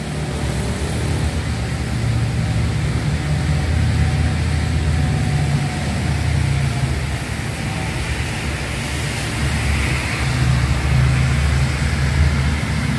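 Steady low rumble with a hiss over it: traffic running on a rain-soaked city road in a storm.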